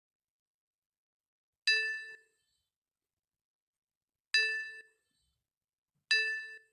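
Three bright bell-like dings, each struck sharply and ringing out for about half a second: the first about two seconds in, then two more closer together near the end.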